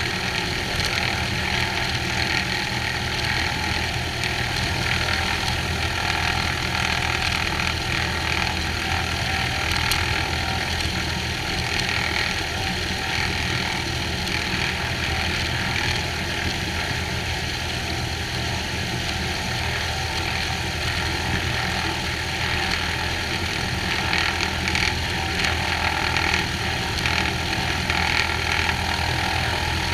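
Cessna 182H's six-cylinder Continental O-470 engine and propeller running steadily at idle, picked up by a microphone on the outside of the airframe.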